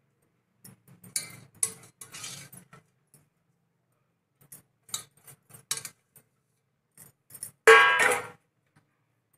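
Bangles on a wrist jingling and clinking against each other and the rim of an aluminium pot as a hand mixes cooked rice, in scattered short bursts, with one louder ringing clink near the end.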